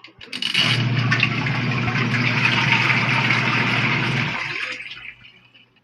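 Mini washing machine running with water in the tub: a steady motor hum under the churning of water, starting about half a second in and stopping about four seconds later.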